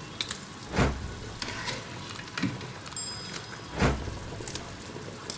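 Chicken being stirred and mixed into pomtayer in a pan with a spoon. There is wet stirring over a steady sizzling hiss, with two dull knocks about three seconds apart and a short squeak near the middle.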